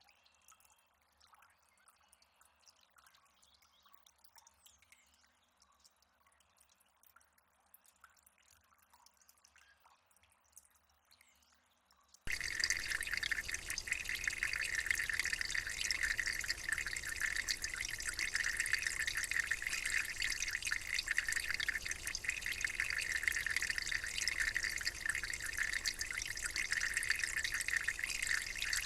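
Faint, scattered water drips, then about twelve seconds in a sudden cut to loud, steady running water with dense fine splashing.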